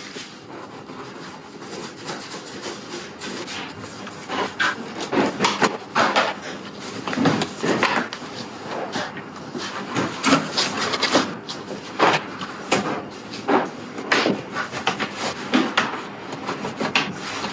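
Plastic trim panels and the carpet liner of a Tesla Model S front trunk being handled and pulled out, giving irregular knocks, clunks and rubbing.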